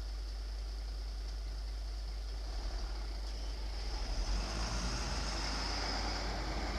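Steady low hum and hiss from a security camera's microphone, with a vehicle passing: a broad rush of noise swells from about two and a half seconds in and stays up to the end.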